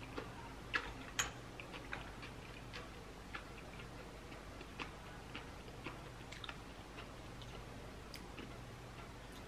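A person eating: irregular soft clicks and smacks from chewing, a few every second, over a low steady hum.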